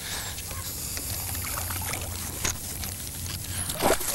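Water splashing as a hooked bass thrashes at the surface beside the boat, with a louder splash near the end. A steady low hum runs underneath.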